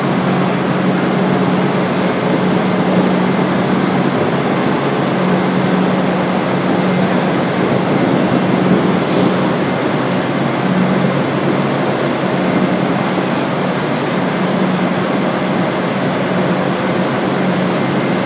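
Offshore industrial machinery running steadily: a loud, constant drone with a low hum and a thin high whine.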